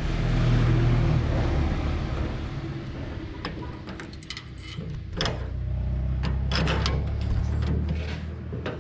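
Patpat tractor engine running, louder at first, easing off about four seconds in and picking up again. Short knocks and rattles come through over the second half.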